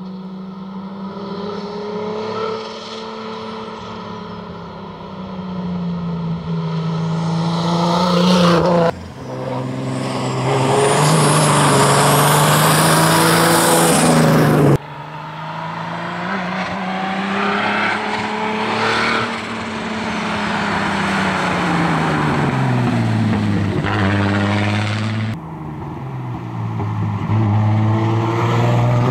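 BMW E30 race car engine and exhaust at hard throttle on a hill climb, its revs rising and falling through gear changes and corners. The sound is loudest and harshest for a few seconds in the middle, and breaks off abruptly three times.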